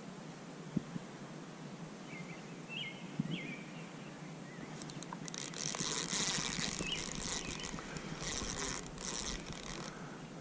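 Outdoor river ambience with short bird chirps now and then and a couple of sharp clicks early on. The loudest part is a stretch of hissing, rustling noise from about five to nine seconds in.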